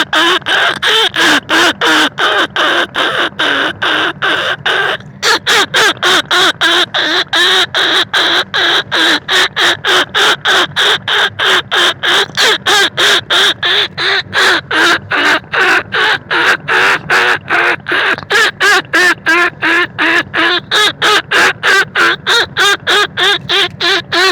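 Rat-calling lure sound used to draw in bandicoot rats and field rats: short squawky calls repeating rapidly, about three a second, with a brief break about five seconds in.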